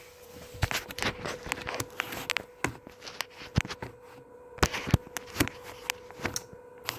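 Irregular sharp clicks and light knocks, a dozen or more, over a faint steady hum.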